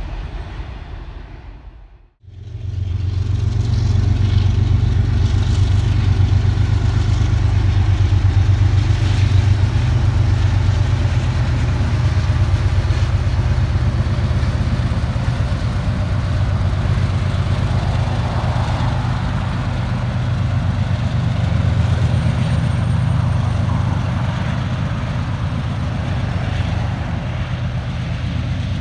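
Diesel locomotive engines running with a deep steady drone and rumble. The sound fades out briefly about two seconds in and comes straight back.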